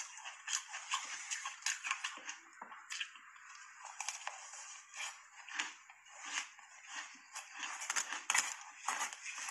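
Close-up chewing of soft shaved ice, eaten in big mouthfuls, with irregular crisp crunches. The crunches grow denser and louder near the end.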